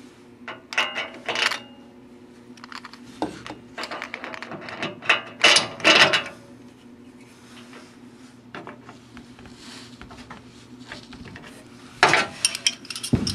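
Metal fittings clinking and rattling in three bursts of handling as a light fixture and its mounting hardware are fitted in place, over a steady low hum.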